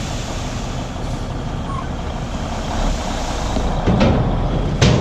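Heavy construction machine's diesel engine running steadily while hauling sand, with two sharp clanks near the end.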